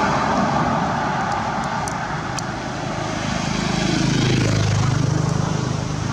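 Road traffic passing close by: tyre and engine noise of a vehicle going past at the start, then a low engine hum that swells about three and a half seconds in and fades near the end.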